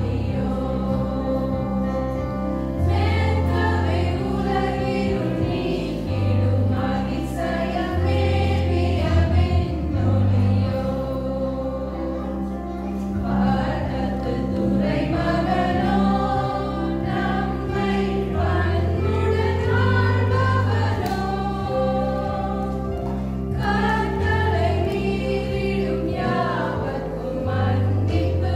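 A group of women singing a song together, accompanied by a Yamaha electronic keyboard playing held bass chords that change every few seconds.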